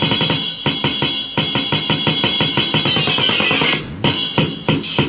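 Intro music with a fast, driving drum-kit beat. About three and a half seconds in, a sweeping sound falls away in pitch, and the music then breaks into a few separate hits.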